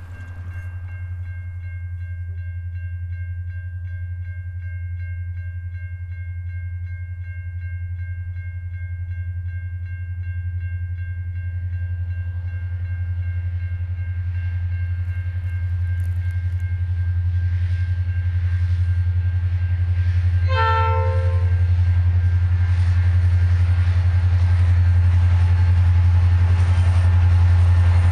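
Diesel-electric freight locomotives (81, XR and G class, EMD two-stroke engines) working under power as the train departs, a deep steady engine drone growing louder. A brief horn blast sounds about two-thirds of the way in.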